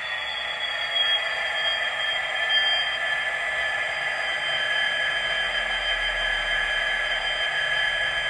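Class 66 diesel locomotive sound from a Hornby TTS DCC sound decoder, played through the model's small speaker: a steady high-pitched whine with little bass. A faint low rumble comes in near the end.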